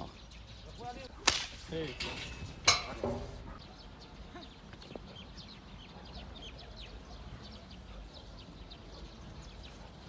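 Two sharp cracks about a second and a half apart, the first a second or so in, the second the loudest.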